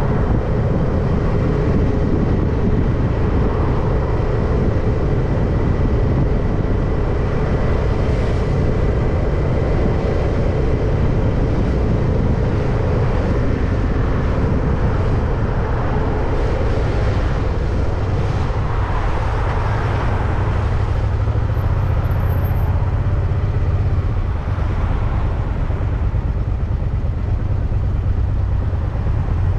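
Steady wind and road rumble on the microphone of a camera carried on a moving bicycle, with the sound of motor traffic going by.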